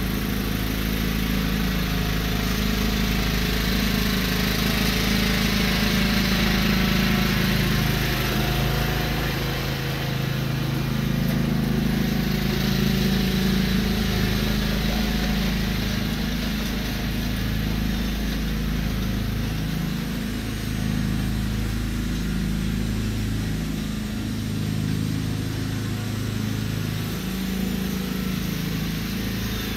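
John Deere riding lawn tractor's engine running steadily while pulling a tow-behind lawn aerator, a little louder as it passes close by midway, then easing off as it moves away across the yard.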